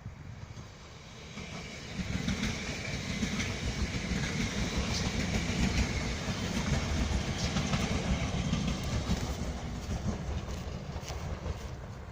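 A train running past, its wheels clattering over the rail joints. It swells about two seconds in and eases off near the end.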